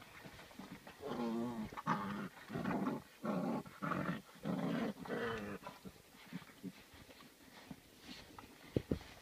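Eight-week-old Rhodesian Ridgeback x Saint Bernard puppies play-growling as they wrestle, about six short growls in a row over the first half, then quieter scuffling with two sharp clicks near the end.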